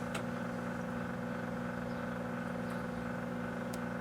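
Microwave oven running with a steady electrical hum and fan drone, heating credit cards that are not sparking or arcing. A faint click sounds just after the start and another near the end.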